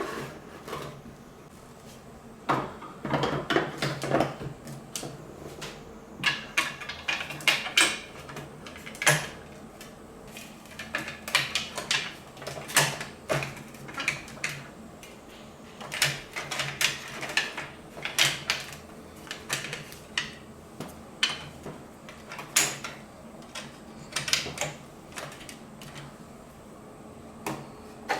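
Marbles clattering and rolling down plastic spiral somen-machine water slides, in irregular bursts of rapid clicks, over a steady background of running water and the low hum of the machines' electric pump.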